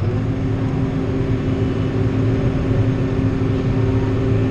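John Deere 7800 tractor running, heard from inside the cab, with a steady pitched hum over the engine drone that starts at the outset and stops just before the end.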